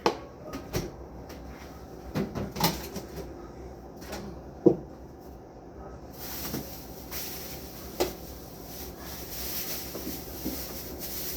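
Irregular knocks and clunks of food containers and the fridge's plastic shelves and drawers being handled, the sharpest knock a little under five seconds in. A steady hiss comes in about halfway.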